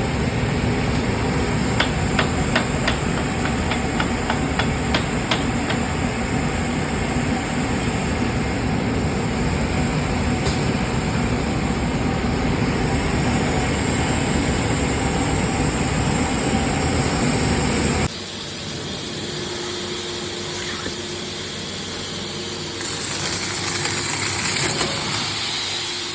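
Wood cutting machine running and cutting through solid wood, with a run of sharp knocks about two to six seconds in. About eighteen seconds in the sound drops suddenly to a quieter running noise, and a brief high whine rises near the end.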